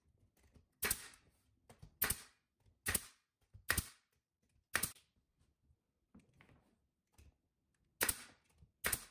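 Pneumatic nail gun firing about seven times, each shot a sharp snap as it drives a nail into a thin strip of wood trim. There is a longer pause of about three seconds between the fifth and sixth shots.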